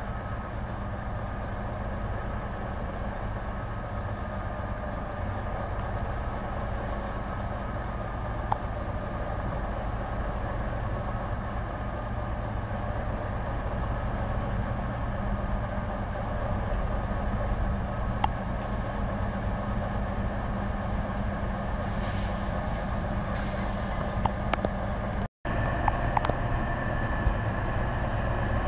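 Diesel locomotive engine running steadily as it approaches at low speed hauling its train, slowly growing louder, with a couple of sharp clicks. Near the end a high steady tone comes in over the engine.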